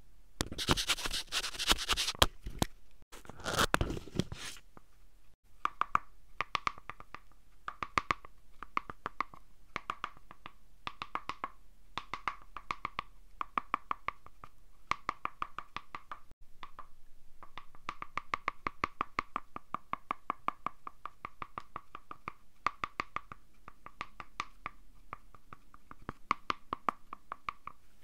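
Paper dragon puppet worked right at a microphone. First come crinkling paper rustles, then a long run of quick, light paper clicks and taps, several a second, as the paper head and jaws move against each other.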